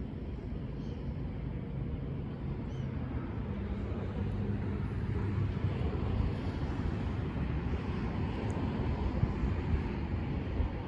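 Steady low rumble of outdoor background noise, growing a little louder about halfway through.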